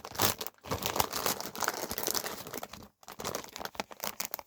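Blind-box packaging being crinkled and torn open by hand, a dense run of crackling and tearing with two short pauses.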